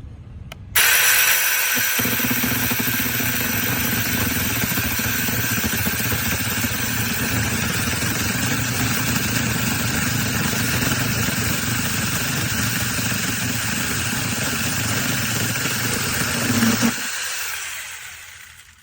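Small battery-powered mini chainsaw running continuously. It starts abruptly just under a second in and dies away near the end.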